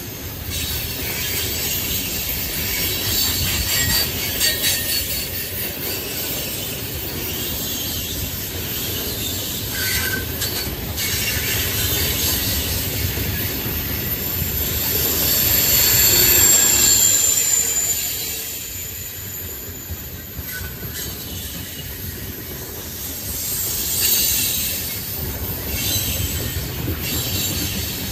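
Tank cars of a freight train rolling past at close range, steel wheels rumbling and hissing on the rails with a thin, high wheel squeal at times. The sound swells loudest about two-thirds of the way through.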